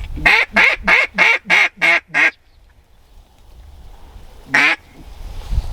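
Mallard-style duck quacks: a quick run of seven loud quacks at about three a second, then a single quack about two seconds later.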